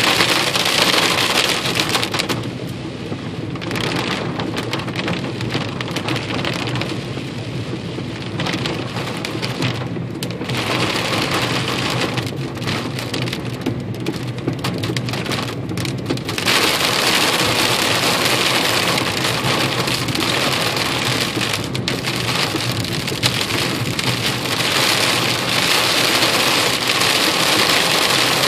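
Hail pelting a car's roof and windows, heard from inside the car: a dense, loud clatter of countless small hits. It eases off about two seconds in and comes back at full strength about halfway through.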